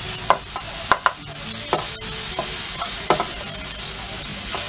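Sliced onion, curry leaves and spices sizzling in oil in a pan as a spatula stirs them, with scattered sharp taps and scrapes of the spatula against the pan.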